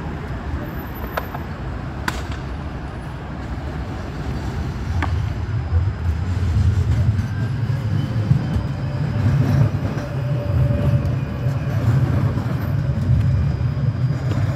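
Electric city tram passing close by: a low rumble of the car running on the rails that grows about five seconds in and holds, with a faint steady whine partway through.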